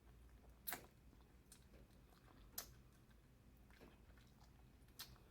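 Faint close-up chewing of snow crab claw meat, with a few soft, sharp mouth clicks spread over a few seconds.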